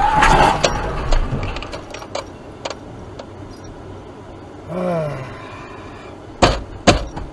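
Tail end of a car crash heard from inside the car: the crumpled front end grinding and scraping as the car comes to a stop, then scattered clicks and ticks from the wrecked car over a low hiss. About five seconds in comes a short sound that falls in pitch, and near the end there are two loud sharp knocks.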